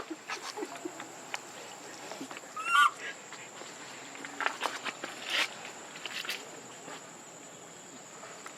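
A single short, high animal call about three seconds in, among a few scattered knocks and rustles.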